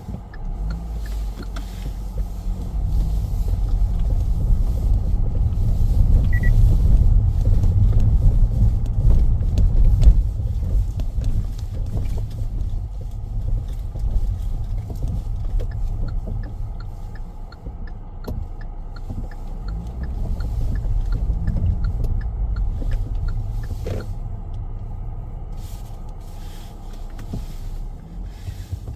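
Car driving along a road: a low rumble of tyres and engine that swells and eases with speed, loudest a few seconds in. Faint, evenly spaced ticks come through for several seconds in the middle.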